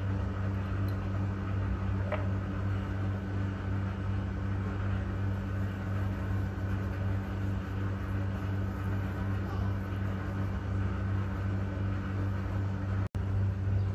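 A steady low electrical or motor hum with a faint hiss, unchanging throughout. It drops out for an instant near the end.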